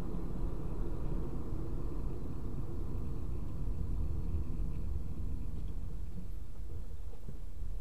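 Steady low rumble of a moving car heard from inside the cabin: tyre and road noise with the engine running underneath.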